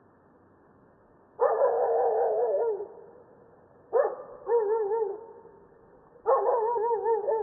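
A dog barking in three loud outbursts of about a second each, with a wavering pitch, a few seconds apart.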